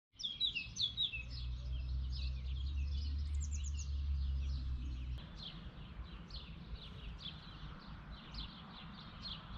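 Small birds chirping and twittering in quick, repeated high notes, with a steady low rumble beneath them that stops abruptly about five seconds in.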